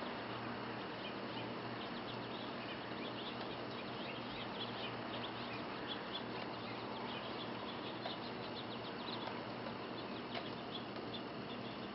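Falling snow: a steady hiss with many faint, quick ticks of flakes landing, scattered irregularly.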